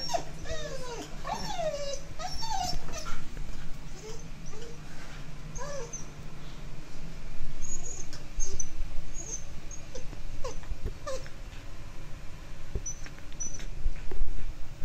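Alaskan Malamute whimpering in fear: a run of high, falling whines in the first few seconds, then a few short ones later. A few dull low bumps come near the end.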